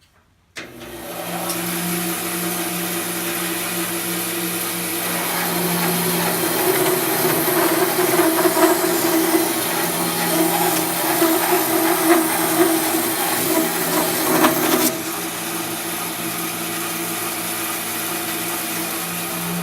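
Grizzly 17-inch bandsaw fitted with a Laguna Resaw King carbide-tipped blade, switched on about half a second in and running steadily. Through the middle it cuts a thin slice off a small wood block, louder and rougher while the blade is in the wood. The cutting noise drops away suddenly as the blade comes through, and the saw runs on freely.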